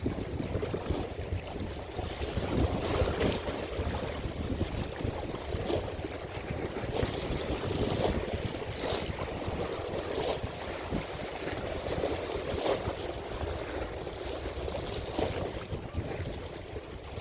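Strong wind buffeting the microphone over water lapping, a steady low rumbling noise with a few faint ticks scattered through.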